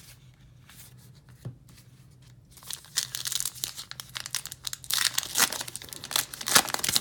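Baseball card pack wrapper being torn open and crinkled: a fast run of crackles and rips starting about three seconds in, after a faint tap.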